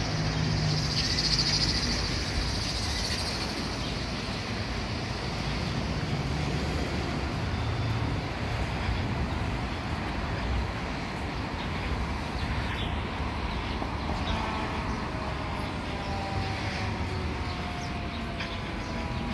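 City street traffic, with a fire engine's siren starting up in the distance about two-thirds of the way in and wailing faintly in slow, sliding sweeps.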